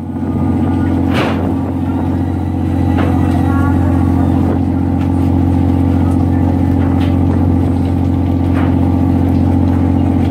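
A fishing boat's engine running with a steady, even drone, with a few sharp knocks from gear being handled on deck.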